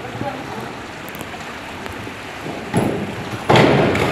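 A man jumping off a diving board into a swimming pool: a short thump about three seconds in, then a loud splash as he hits the water, over the steady hiss of the pool hall.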